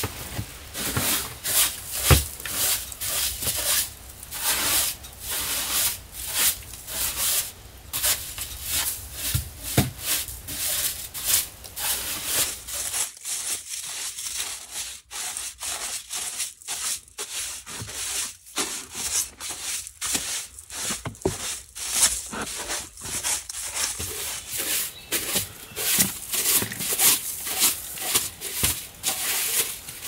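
Straw broom sweeping wooden plank stair treads, quick repeated brushing strokes of bristles scraping across the boards.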